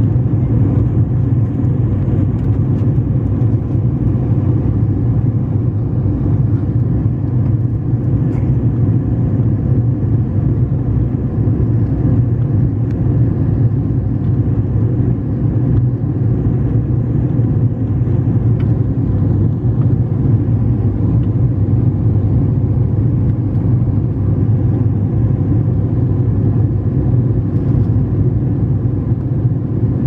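Steady, loud airliner engine and airflow noise heard inside the passenger cabin as the plane climbs after takeoff. It is an even, unbroken drone with most of its weight in a low rumble.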